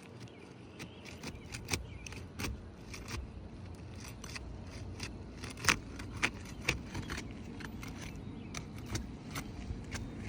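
Irregular sharp clicks, taps and scrapes of a hand tool working under roof shingles to break their seal strips. The loudest clicks come about halfway through, over a steady low background noise.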